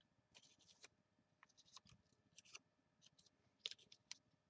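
Near silence with faint handling of paper: scattered short rustles and scrapes, the sharpest a little after three and a half seconds in.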